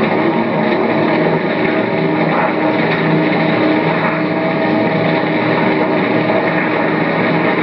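Loud, steady engine-like noise with no sudden bangs.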